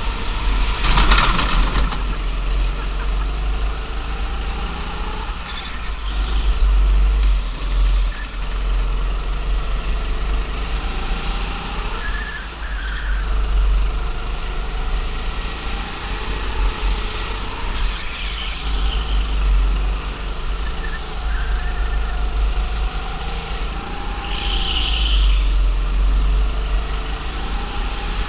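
Go-kart engine running on board the kart during hot laps, its pitch rising and falling with the throttle through the corners, over a heavy low rumble of vibration and wind on the onboard microphone. A short loud rush of noise comes about a second in.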